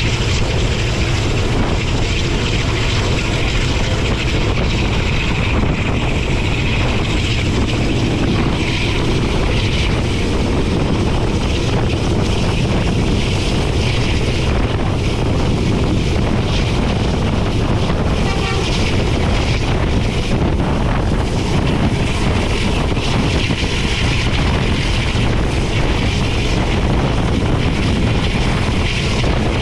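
Passenger train running at high speed: a steady, loud rumble of wheels on the rails mixed with a rush of air, with no let-up.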